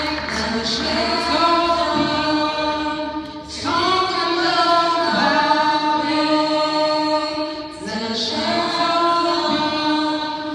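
Church choir of men and women singing a worship song in long held phrases, with short breaths between phrases about three and a half and eight seconds in.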